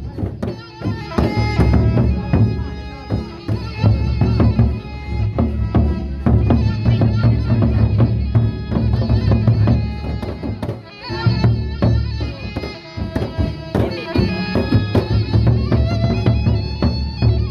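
Gendang beleq ensemble playing in procession: large Sasak barrel drums beaten in a driving rhythm, with clashing cymbals and a wavering high melody held over the top. The drumming thins briefly about eleven seconds in, then comes back in full.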